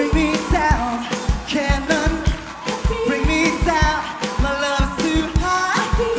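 Pop song with a sung vocal over a steady beat.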